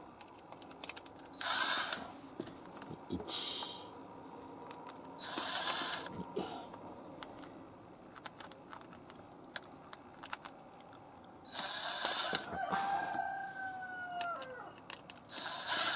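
Cordless impact driver spinning out the screws of a power sliding-door motor's housing in several short bursts.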